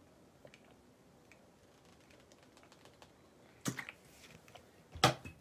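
A plastic water bottle being handled during a drink: faint small clicks, then two sharp knocks about a second and a quarter apart near the end, the second the louder.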